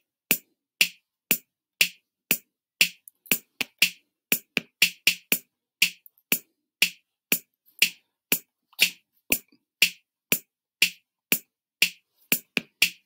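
BandLab drum machine with its 808 kit playing a programmed groove of hi-hat, snare and bass drum at 120 bpm, a steady beat of about two hits a second. Quicker runs of extra hits come twice, about four seconds in and near the end.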